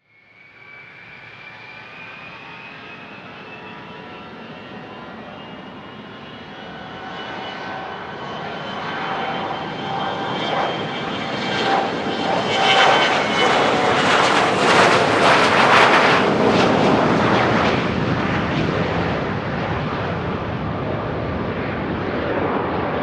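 Business jet's turbofan engines with a high whine over a rushing roar, growing louder to a peak about two-thirds of the way through and then holding steady as the jet goes past.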